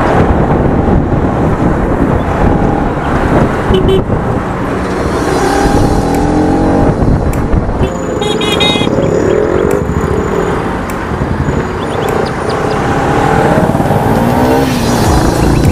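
Bajaj Pulsar RS 200 motorcycle engine running under way, its pitch rising and falling several times as the rider opens and closes the throttle. A short, high beeping sounds about eight seconds in.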